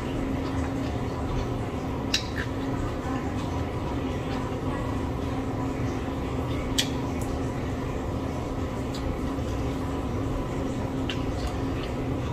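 Soft eating sounds as a fried chicken wing is picked apart by hand and chewed, with a few sharp clicks, over a steady low hum.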